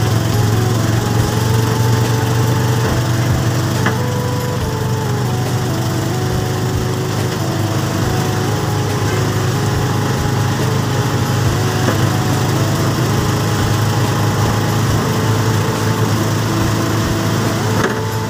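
A small engine droning steadily, heard from aboard the vehicle as it drives through heavy rain, under a constant hiss of rain and wet road.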